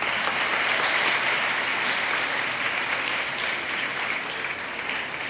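Audience applauding, a steady clapping that starts just before and tapers off near the end.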